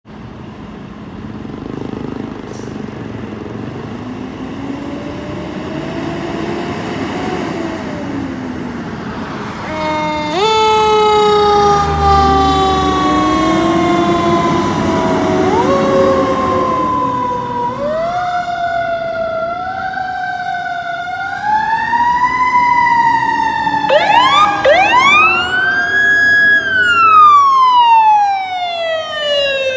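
Emergency sirens of a fire engine and a paramedic rescue ambulance responding. A fainter siren wails slowly through the first ten seconds. A loud siren then starts abruptly about ten seconds in with long falling wails, and from about eighteen seconds on switches to faster rising-and-falling sweeps and quick yelps.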